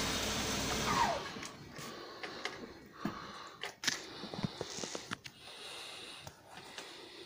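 Faint, scattered clicks and knocks, with a steady rushing noise that dies away about a second in.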